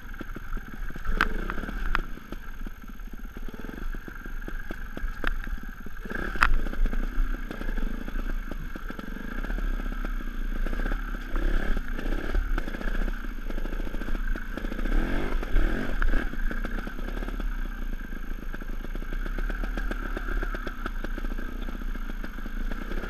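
Sherco 290 ST two-stroke trials motorcycle engine running at low revs and blipping up and down in short bursts, with a few sharp knocks within the first seven seconds.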